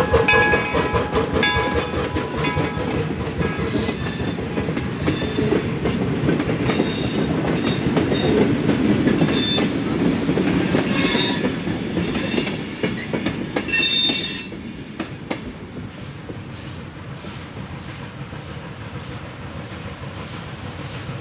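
Replica 1860s steam train, locomotive and wooden coaches, rolling close by: a rumble with rapid clicking of wheels over the rail joints and intermittent high wheel squeals, and a ringing tone that fades in the first few seconds. About fifteen seconds in it drops to the quieter sound of the train running in the distance.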